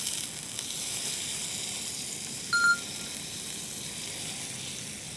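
Pork belly slices sizzling in a small stainless steel frying pan, a steady hiss of frying fat. About halfway through, a brief high ping sounds once.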